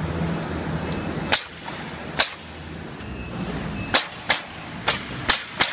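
Pneumatic nail gun firing nails into a wooden pallet: seven sharp shots at uneven intervals, the first about a second and a half in, three of them in quick succession near the end.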